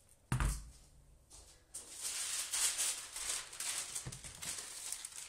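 A dull knock of a metal baking tray on the worktop, then a few seconds of dry, grainy rattling and rustling: pearl sugar grains shifting on the tray as a sheet of baking paper is handled.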